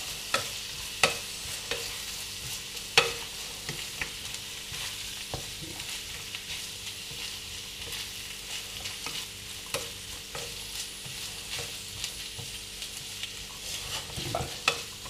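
White beans, tuna and onion frying in olive oil in a frying pan, sizzling steadily, while a spatula stirs them and knocks against the pan now and then, most often in the first three seconds.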